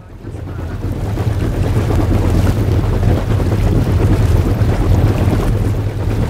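A boat's motor runs steadily under heavy wind buffeting on the microphone, with water noise around the hull. The sound fades in over the first half second.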